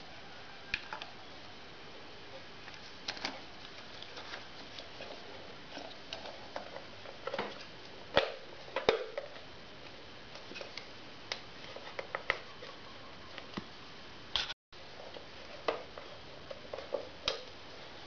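Hands handling wiring connectors and fitting the headlight unit back into a motorcycle's headlight bucket: scattered small clicks, taps and rustles, with two louder knocks about eight and nine seconds in.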